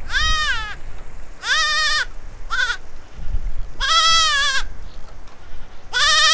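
Spanish goat kids bleating: five high, wavering calls about a second apart, some short, some nearly a second long.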